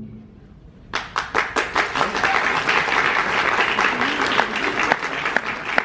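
Audience applause with many hands clapping, breaking out about a second in as the ring of a big drum stroke dies away, then holding steady.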